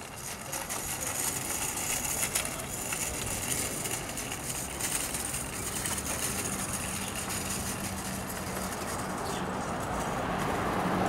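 Street traffic noise, a steady wash of passing vehicles, with a low steady engine hum coming in about halfway.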